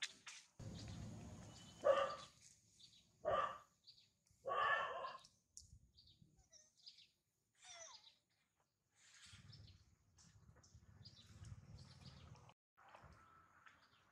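Three short animal calls, between about two and five seconds in, over scattered faint clicks and high chirps. A low rumble comes and goes underneath.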